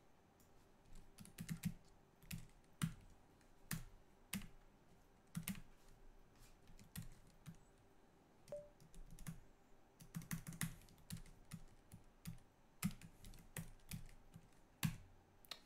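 Faint typing on a computer keyboard: scattered keystrokes in short, irregular runs.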